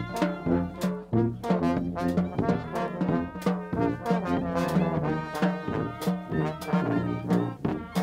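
Brass band playing a tune: sousaphone bass notes and trombones over a steady drum beat of about two strikes a second.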